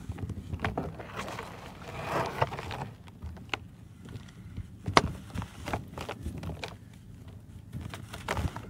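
Hands crumbling dry, soil-caked broken brick pieces, with gritty crunching and dry dirt trickling down. A longer run of trickling grit comes about two seconds in, and scattered sharp cracks follow, the loudest about five seconds in.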